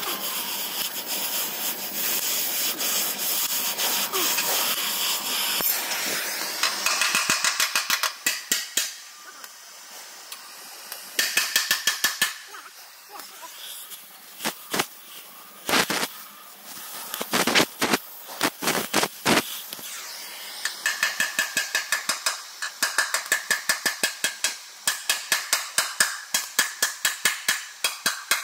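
Oxy-acetylene torch flame hissing steadily as it heats a bent steel chassis beam, followed by hammer strikes on the hot steel: scattered blows at first, then a fast, regular run of taps, about two or three a second, with a metallic ring.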